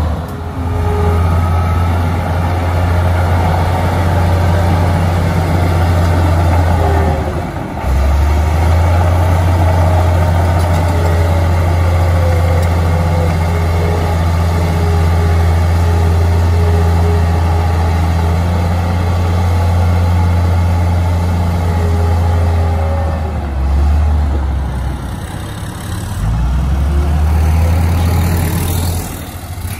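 Komatsu D53A crawler bulldozer's diesel engine running under load as it pushes dirt, a loud steady low drone that dips briefly about a quarter of the way in and a few times near the end.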